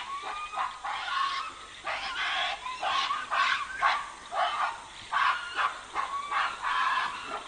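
Female western lowland gorillas screaming in a squabble, a rapid run of short shrill calls, two or three a second: a fight that breaks out when food is scarce.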